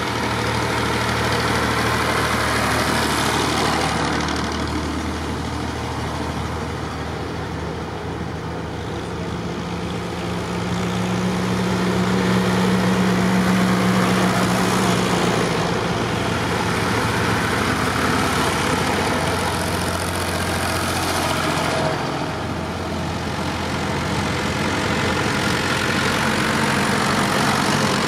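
Tractor engines running as a procession of tractors drives past one after another. The sound is loudest about halfway through, as a small red vintage tractor passes close by, and a larger tractor's engine comes up near the end.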